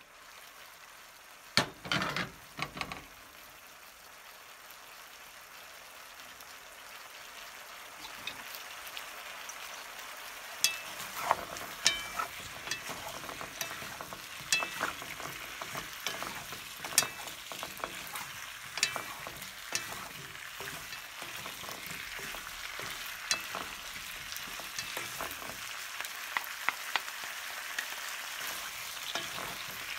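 Pan of potato wedges, carrot, onion and zucchini sizzling, getting gradually louder, after a brief clatter about two seconds in as the glass lid comes off. From about ten seconds in, a wooden spatula stirs the vegetables, knocking and scraping against the pan.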